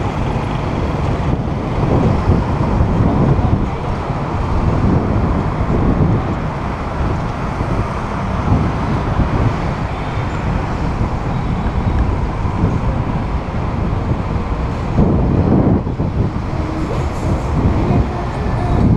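Street traffic of cars and motorbikes heard from a moving bicycle, with steady wind rumble on the camera microphone.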